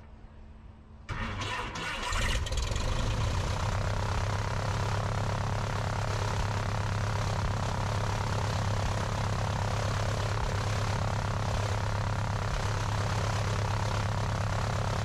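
The four-cylinder engine of a 1955 Piper Tri-Pacer being started. It turns over about a second in, catches about two seconds in, then runs steadily at idle with the propeller turning.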